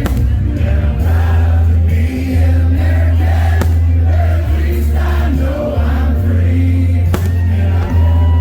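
Music with singing voices over a loud, steady bass.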